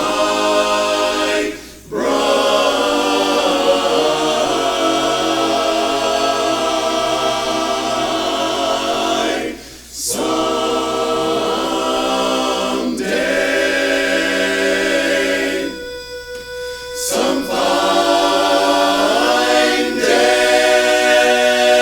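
Men's a cappella chorus singing sustained chords in close harmony. Brief breaks fall between phrases about two and ten seconds in, and the sound thins for a moment near the three-quarter mark. Then the full chorus comes back in, loud and held.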